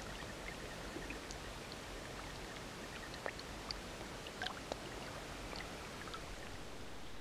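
Small waves lapping on a stony lake shore: a steady wash of water with scattered small splashes and clicks.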